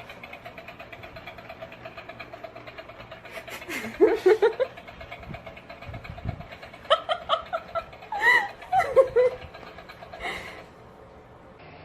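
A pet sneezing once, about four seconds in, followed a few seconds later by a person laughing in short bursts.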